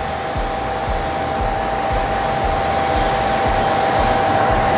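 Steady rushing noise of workshop machinery running, like a fan or pump, with a steady high whine through it.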